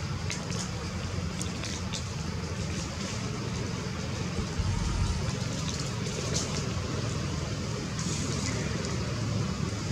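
Steady low rumble of outdoor background noise, with a few faint brief ticks in the first two seconds.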